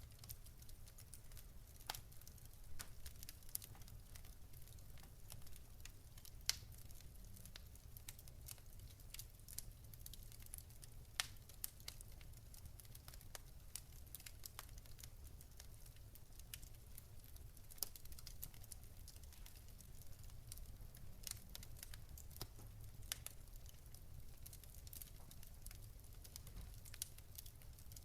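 Faint crackling fire: irregular small pops and snaps, a handful of them louder, over a low steady rumble.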